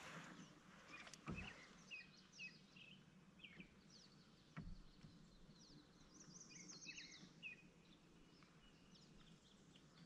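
Faint birds chirping, many short calls scattered throughout, with a quick run of high chirps about six seconds in. Two soft knocks, about one and four and a half seconds in.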